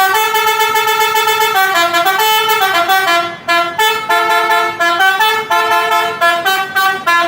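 Indonesian bus telolet horn, a multi-tone musical air horn, playing a long melody: one long held note, then a run of shorter notes stepping up and down in pitch.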